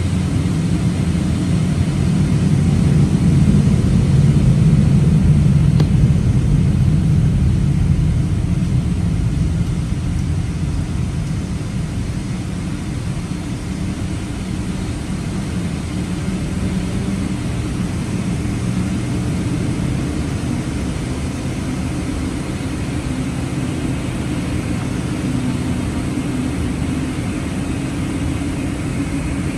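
Boeing 777-300ER's GE90-115B turbofan engines running at low power before the takeoff run, heard from inside the cabin as a steady low rumble. The rumble swells slightly for the first several seconds, and a faint high whine comes in near the end.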